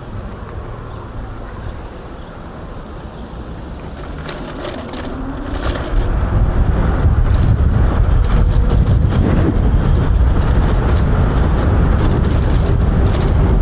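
Wind buffeting the helmet microphone as an electric hyperscooter rides along. The rumble grows sharply louder about six seconds in as speed picks up, with a faint rising motor whine just before and scattered clicks and rattles from the rough ground.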